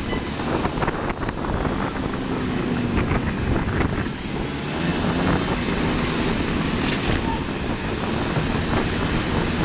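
Motorcycle being ridden through city traffic: its engine runs steadily under wind buffeting on the microphone, with road and traffic noise around it.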